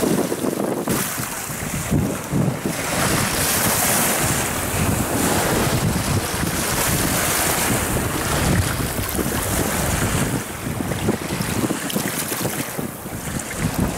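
Storm wind buffeting the microphone over waves breaking and washing up a pebble shore, rising and falling in gusts.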